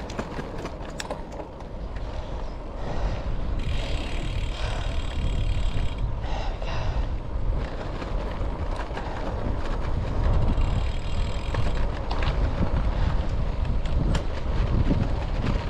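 Wind buffeting a head-mounted action camera's microphone, mixed with tyre rumble from a road bike rolling over a rough country lane. The sound gets louder about three seconds in and stays up.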